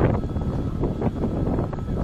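Rumble of a freight train of tank cars on the line, mixed with wind buffeting the microphone.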